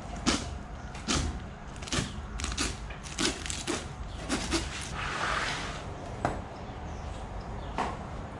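A knife filleting a sheepshead on a cutting table: irregular short, sharp crunching clicks and scrapes as the blade works through the fish's scaly skin and along its ribs, with a longer scraping stroke about five seconds in.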